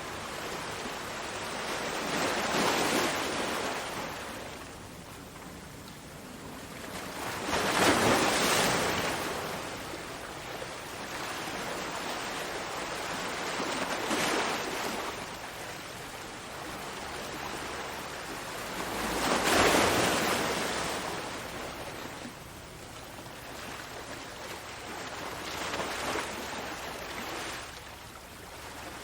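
Ocean waves breaking on a shore and washing back, a swelling rush of surf that rises and falls about every five to six seconds; the two biggest waves break about eight seconds in and again near twenty seconds.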